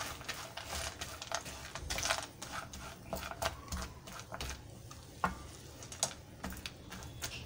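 Spatula stirring peanuts and roasted chana into hot jaggery syrup in a non-stick pan: irregular scrapes and clicks of the nuts against the pan.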